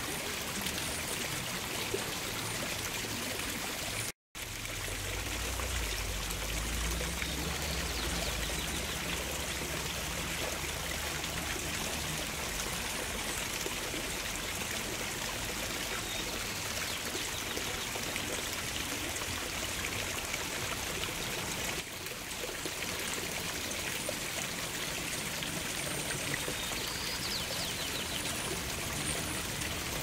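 Water pouring from a small pipe outlet into a shallow pool and running over rocks, a steady splashing rush. The sound drops out for an instant about four seconds in, followed by a few seconds of low rumble.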